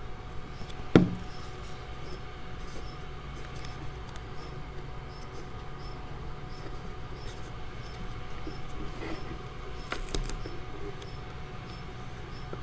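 Faint handling noise of paper strips being woven and pressed into place, small clicks and taps over a steady low hum, with one sharp click about a second in and another near ten seconds.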